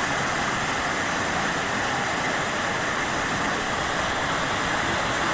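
Storm floodwater rushing in a torrent down a street: a steady, even rush of water.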